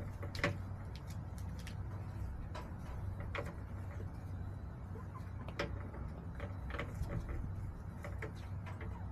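Hens pecking and shuffling in the coop: irregular light taps and clicks, a few every couple of seconds, over a steady low hum.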